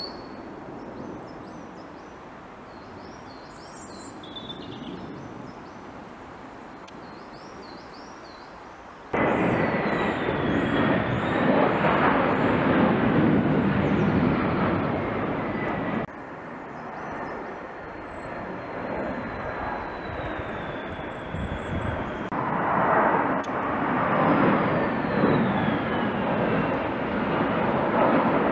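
Military planes flying over: a broad rushing noise with a slowly falling whine, which starts abruptly about nine seconds in, cuts off abruptly around sixteen seconds, and swells again near the end. Small birds chirp in the quieter stretch before it.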